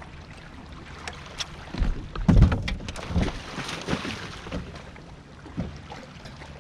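Bass boat under way on a lake: steady outboard engine hum and rushing water with wind on the microphone. A cluster of heavy thumps and knocks comes about two seconds in.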